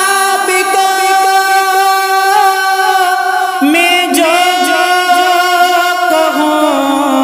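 A singer's voice holding a long drawn-out note of a devotional Urdu manqabat, stretched between the words of the line. About halfway through, the melody drops to a lower note and wavers in quick ornaments.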